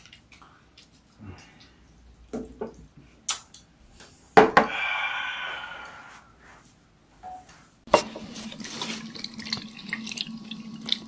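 Honey whiskey poured from a bottle into a glass of ice cubes, the liquid splashing and trickling over the ice: a short pour about halfway through and a longer, steady one through the last few seconds, with a few light clicks of glass and bottle.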